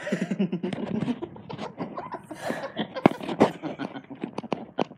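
A person laughing in short pulses, then a run of sharp clicks and knocks from a phone being jostled in the hand.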